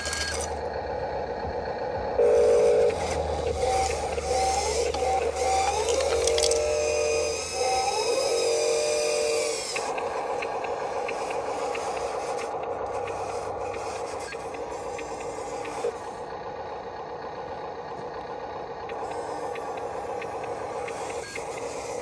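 Small electric motors of an RC wheel loader whining as it drives and works its bucket, the pitch wavering with a few short rising glides in the first half. The whine settles into a steadier, quieter hum for the rest.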